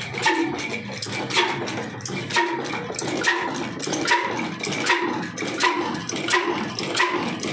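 Old Fine Mughal Son single-cylinder slow-speed diesel engine running, firing in heavy, evenly spaced beats. The beats start about a second apart and steadily quicken as the engine gathers speed after starting.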